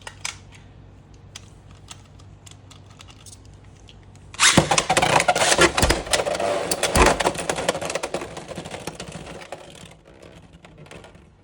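Beyblade X tops Dran Buster and Hells Hammer launched into a plastic stadium about four seconds in, spinning and scraping with rapid clattering hits and two hard knocks, then dying away near the end; the battle ends in a burst finish.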